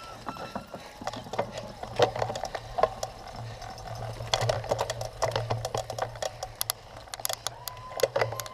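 A cyclocross bike clattering and rattling over rough ground while being ridden at race pace: rapid, irregular clicks of the chain and frame over a steady low hum. A few short squeaks are mixed in.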